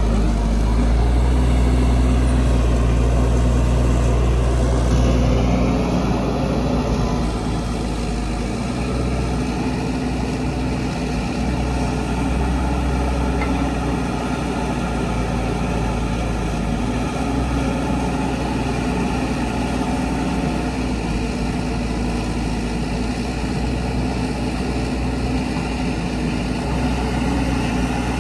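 Heavy diesel engine of earth-moving machinery running steadily, somewhat louder for the first five seconds or so and then settling a little lower.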